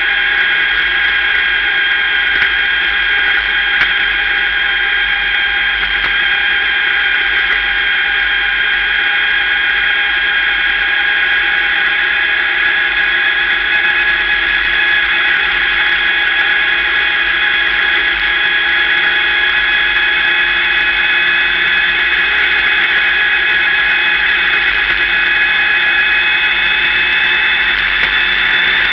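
Sportsman dirt-track race car rolling at a slow, steady pace, heard from inside the cockpit: a steady high-pitched whine over a low rumble.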